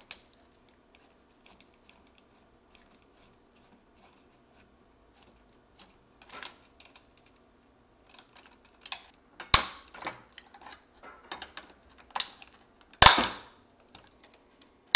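Plastic housing of an electronic overload relay being pried and broken apart by hand and with tools. Small scattered clicks and taps come first, then, from about six seconds in, several loud sharp cracks of plastic snapping, the loudest about ten and thirteen seconds in.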